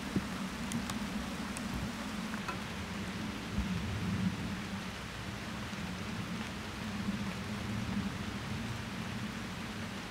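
Steady rain falling on wet asphalt and grass, an even hiss with a low steady rumble underneath.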